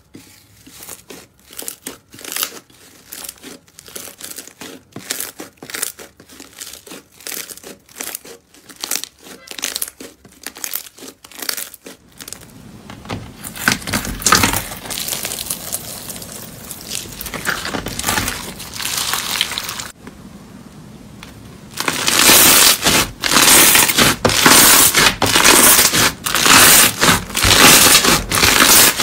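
Hands squishing and pressing slime, with rapid sticky pops and clicks. About halfway a glittery, textured pink slime is poked and pressed. Then, after a short lull, a louder, dense crackling as a foamy pink slime is squeezed.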